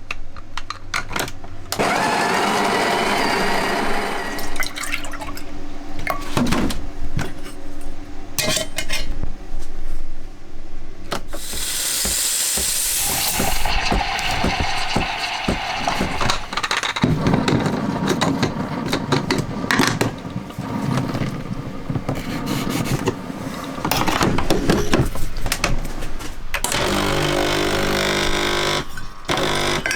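Coffee being made with a battery-powered portable espresso machine: its pump buzzing in spells and liquid pouring, among clicks and knocks of handling. A brief loud hiss comes a little before the middle.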